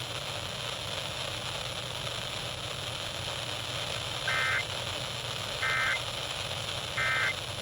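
Weather radio receiver hiss with a low hum. Near the end come three short, identical data bursts, evenly spaced about 1.3 s apart: the EAS/SAME end-of-message code, sent three times to mark the end of the alert.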